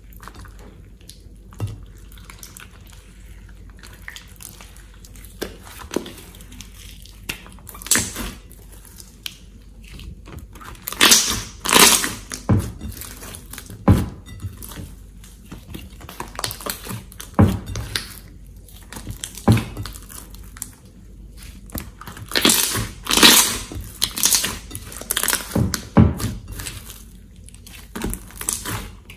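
Hands squeezing, stretching and folding thick slime in a glass bowl, giving irregular sticky squelches and crackling pops. The louder clusters of pops come about a third of the way in and again in the last third.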